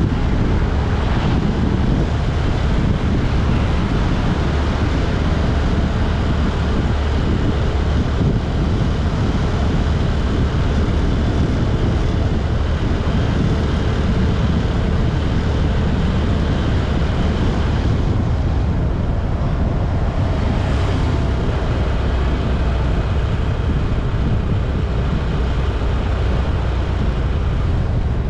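Steady road noise from a moving vehicle, with wind rumbling on the microphone.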